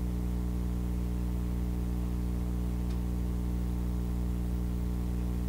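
Steady electrical mains hum, a low drone with a stack of overtones held at one pitch and an even level throughout.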